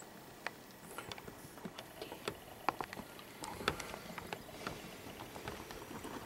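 Quiet handling noise: scattered faint clicks and light knocks of gear being moved, with no gunshot.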